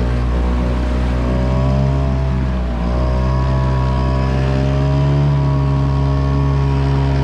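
Yamaha 5 hp outboard motor running at full throttle, a steady drone that dips slightly in pitch about two and a half seconds in, then holds.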